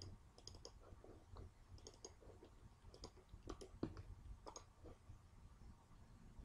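Faint computer mouse clicks, a dozen or so scattered irregularly, several in quick pairs, over quiet room hiss.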